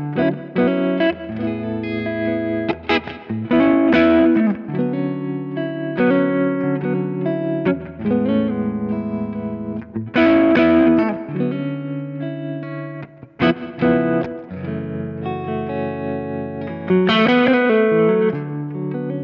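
Electric guitar played through a JK Amplifiers Oxygen valve preamp: ringing chords and single notes with several string bends.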